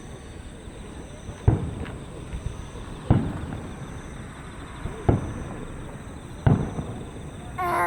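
Aerial firework shells bursting across a lake: four deep booms, about one every one and a half to two seconds, each trailing off in an echo. A person's voice briefly near the end.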